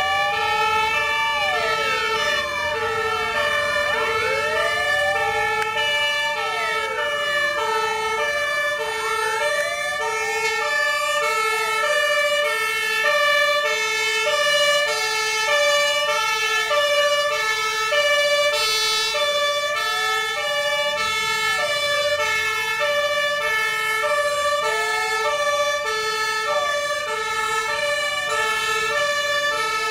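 Several fire engine sirens sounding at once: a two-note hi-lo siren alternating steadily, overlapped by wailing sirens that rise and fall every couple of seconds.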